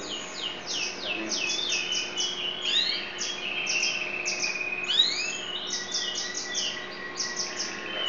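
Yellow domestic canary singing a long, varied song: runs of quick down-slurred notes, rising sweeps and a few steady held whistles, without a break.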